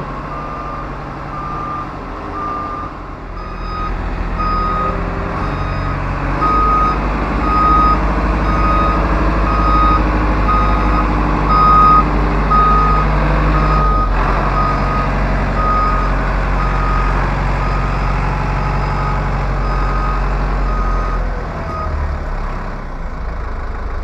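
Reversing alarm beeping steadily, a little over once a second, over the running four-cylinder turbocharged engine of an Ajax Argo 2300 self-loading concrete mixer as it moves off a trailer. The engine grows louder a few seconds in, and the beeps and engine both drop away near the end.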